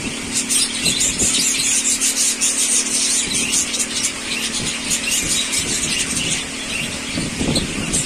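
A small flock of budgerigars chattering: a dense, continuous run of rapid, high-pitched chirps and squeaks.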